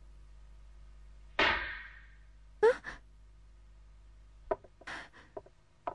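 A girl's breathy sigh, then a short gasping sob a second later. Near the end come several faint, irregular knocks.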